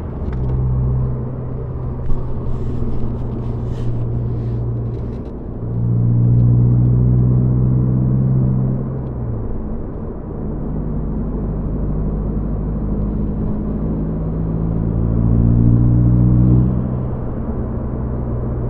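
A 2022 Subaru WRX's turbocharged 2.4-litre flat-four and Tomei titanium exhaust, heard from the back seat inside the cabin as a steady low drone. It swells louder twice, about a third of the way in and again near the end.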